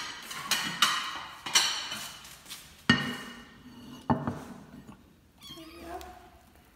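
Ceramic plates clinking and knocking as they are lifted out of a wicker basket and set down on a wooden table: five sharp, ringing clinks. About a second and a half later a kitten mews briefly.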